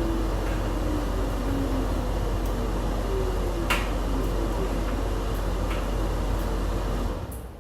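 LG washing machine running at the end of its cycle: a steady hum with a faint whine slowly falling in pitch as the drum slows, one sharp click about halfway through, then the machine goes much quieter near the end as it stops.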